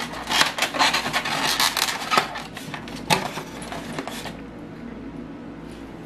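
Quick clicks and rustling of a plastic egg carton being opened and eggs taken out, with one sharper click about three seconds in. The handling dies down about four seconds in.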